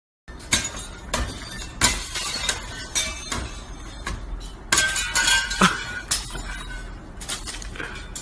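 Window glass being struck again and again and breaking, with about a dozen sharp, irregular hits and the clink and tinkle of shattering panes, busiest about five seconds in.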